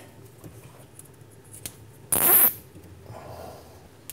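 A zip tie being pulled tight gives one brief ratcheting zip about two seconds in.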